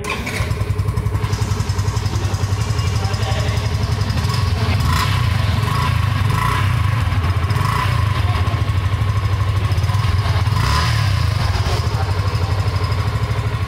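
Yamaha FZ V3's single-cylinder four-stroke engine running at idle through its stock exhaust, a steady, fast, even pulse with a few brief surges around the middle.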